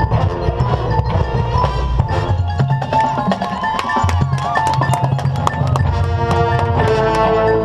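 Drum corps field-show music led by percussion: mallet keyboards such as marimbas and xylophones play quick runs over drums and hand percussion, with held pitched notes underneath and a sliding, bending tone about halfway through.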